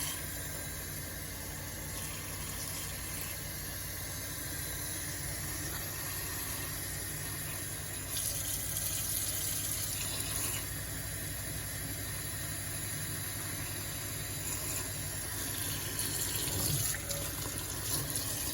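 Tap water running steadily into a kitchen sink, with a steady low hum underneath. The flow gets louder for a couple of seconds about eight seconds in.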